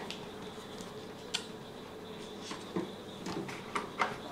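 Low room tone with a few faint, short clicks and knocks of objects being handled on a towelled work table.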